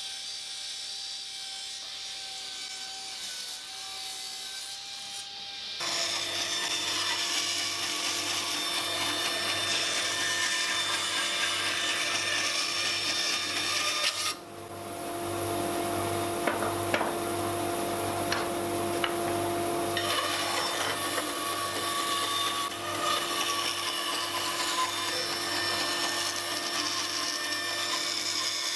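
Power saw cutting a glued-up walnut and maple panel into strips. The machine runs more quietly at first, and the louder cutting sound starts about six seconds in, with a brief drop about halfway through.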